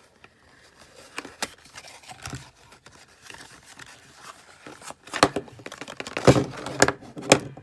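Small paperboard cartons of oil paint being opened and handled and the paint tubes taken out and set down. Scattered short scrapes and knocks, sparse at first and busiest and loudest in the last two and a half seconds.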